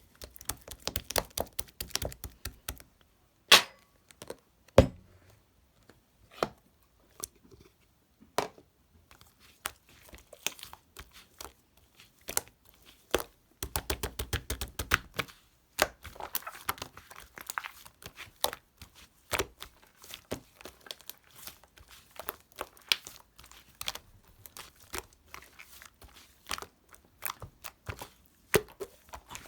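Hands working slime: a steady stream of irregular sharp clicks, pops and crackles as it is pressed, stretched and folded, with a denser, fuller stretch of squishing about halfway through.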